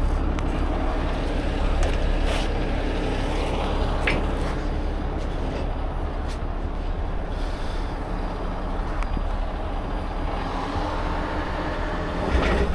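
Heavy tow truck's diesel engine running steadily, with a few sharp metallic clinks from the lifting chains and hook.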